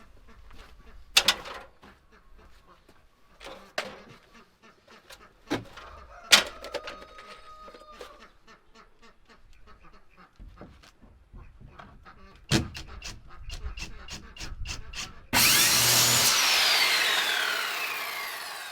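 Scattered knocks of lumber and tools being handled, one with a brief metallic ring. About 15 seconds in, a power saw cuts through a wooden framing board, starting abruptly, loud and steady, its pitch falling as it runs on.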